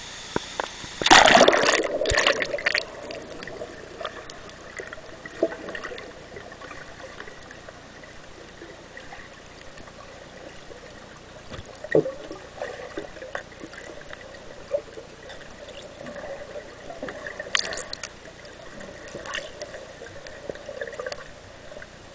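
A loud splash about a second in as the camera goes under the river water, then muffled underwater gurgling and bubbling with scattered small clicks.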